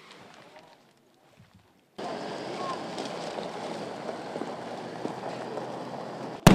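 A convoy of SUVs driving over gravel: a steady rush of engine and tyre noise that starts suddenly about two seconds in. Near the end a single sharp, loud bang cuts in.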